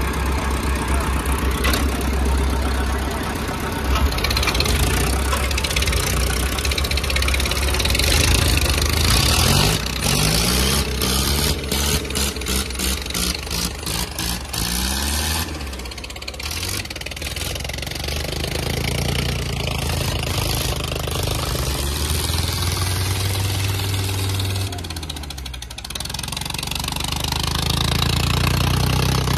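Tractor diesel engines running hard under heavy load in a tractor tug-of-war, chained against each other. The revs rise and fall, with a pulsing stretch about a third of the way in and brief dips about halfway and near the end.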